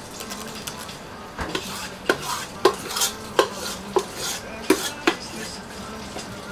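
A utensil clinking and scraping in a bowl while scooping soufflé pancake batter: about seven sharp clinks over the middle few seconds. A steady low hum runs underneath.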